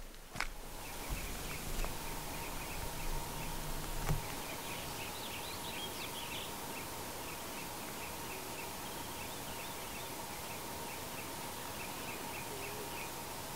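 Outdoor ambience: a steady hiss with faint, short high chirps repeating two or three times a second throughout. A low rumble fills the first few seconds and ends in a single knock about four seconds in.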